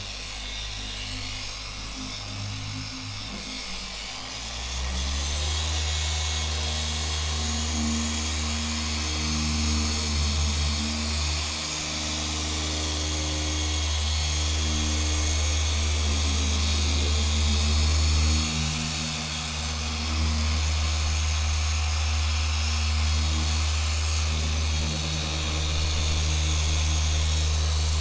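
An electric power tool whining steadily under background music with a beat, growing louder about five seconds in.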